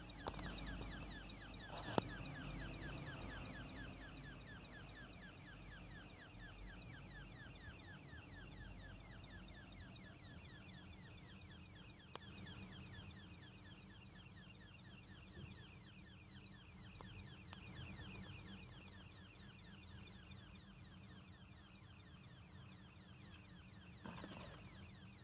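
Electrical switchboard chirping: a fast, steady run of short, high-pitched chirps, each falling in pitch, about five a second, over a low hum. A single sharp click sounds about two seconds in.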